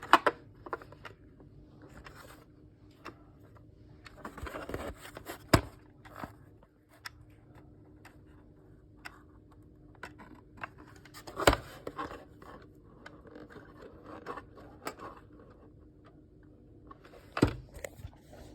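Alarm clock handled while its time is being set: scattered small plastic clicks and scrapes, with a longer scraping rustle about four seconds in and a few sharper clicks spaced several seconds apart.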